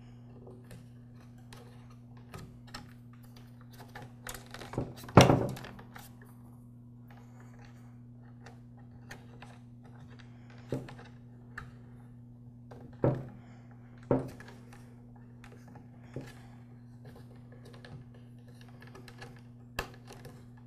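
Scattered clicks, taps and a few knocks of wires with metal eyelet terminals being pushed through tabs in a plastic tool-handle housing, the loudest knock about five seconds in. A steady low hum runs underneath.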